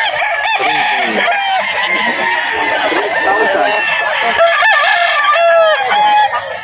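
Many gamecocks crowing and clucking at once, their calls overlapping continuously.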